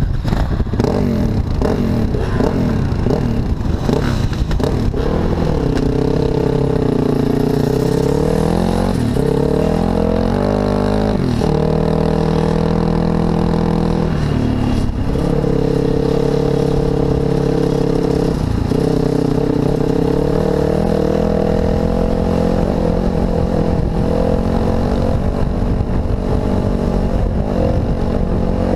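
Dirt bike engine heard from the rider's helmet, pulling along a dirt trail, its note rising and falling with the throttle and dropping at several gear changes.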